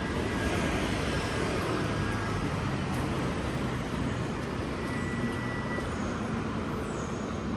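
Steady outdoor city noise: a low, even rumble of vehicle traffic.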